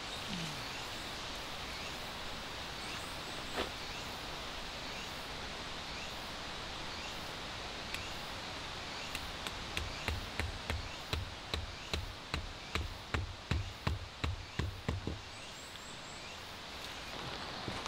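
A hammer driving a tarp peg into the ground: a regular run of about fourteen knocks, two or three a second, starting about halfway through and stopping shortly before the end. Under the knocks is a steady outdoor background.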